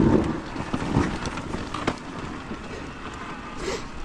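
KTM enduro dirt bike rolling over a rutted, rocky dirt trail: steady tyre and gravel noise with a few sharp knocks from the bike over the ruts, and wind on the microphone.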